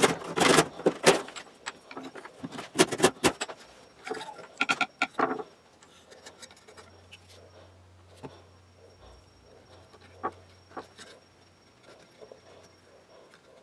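Hand saw cutting a wooden dowel, quick strokes in three short bursts over the first five seconds. After that, light clicks and taps as small wooden parts and dowel pegs are handled on a wooden workbench.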